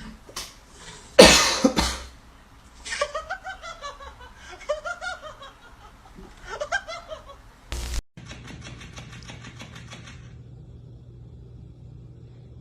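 A loud sudden burst about a second in, followed by a person laughing in short rising-and-falling bursts. After an abrupt cut, a steady low hum with a brief run of faint rapid ticks.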